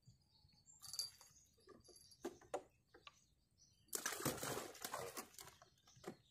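Small clicks and rustles of a fish being taken off the hook, then about a second and a half of dense rattling and slapping about four seconds in as the fish is put into a plastic cooler box and flaps inside it.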